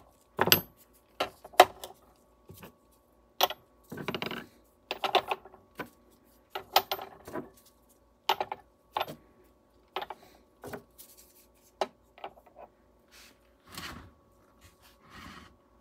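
Aluminium ingots clinking and knocking against one another as they are handled and set down: a dozen or more irregular sharp metallic knocks with a short ring.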